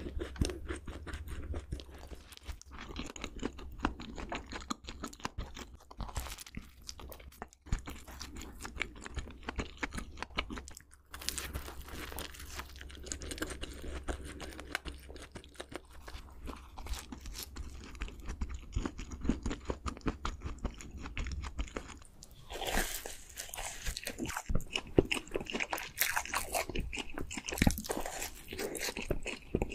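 Close-miked chewing and crunching of chocolate-topped donuts, a dense run of small crisp clicks. A low hum sits underneath until about three-quarters of the way through, after which the crunches come sharper and brighter.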